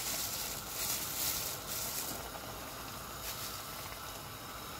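Pork gukbap broth boiling hard in a pot, a steady bubbling hiss, a little busier in the first couple of seconds.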